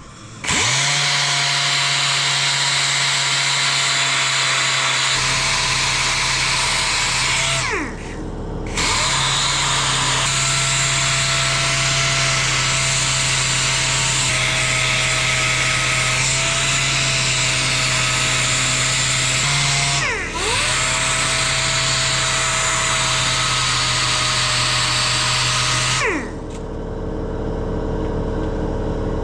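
Dual-action (DA) sander running steadily while dressing the surface of an aluminium panel. It winds down and spins back up twice, about 8 and 20 seconds in, then is switched off near the end, leaving a quieter steady hum.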